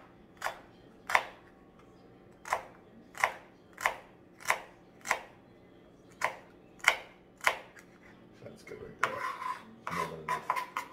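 Chef's knife chopping celery on a plastic cutting board: about a dozen sharp taps at an uneven pace with two short pauses, then softer scraping near the end as the diced pieces are moved.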